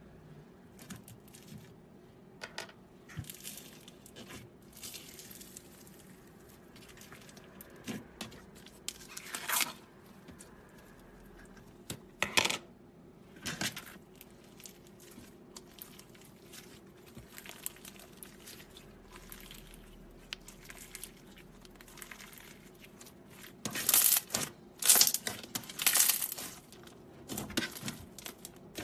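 Slime being handled by hand, pressed, stretched and poked, giving irregular short sticky clicks and crackles, with a louder run near the end.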